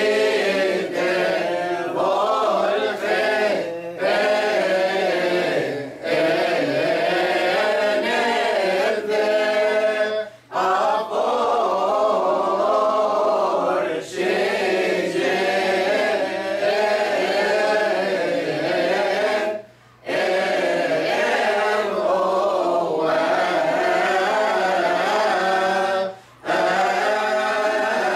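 Mixed choir of men and women chanting a Coptic church hymn a cappella, in long sustained phrases with three short breaks between them.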